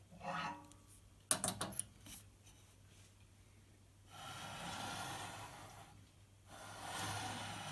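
Quiet hand-tool work on the table saw: a quick cluster of sharp metal clicks about a second in, as a screwdriver levers the motor-and-blade carriage a little further. Two longer, smooth hissing sounds follow in the second half.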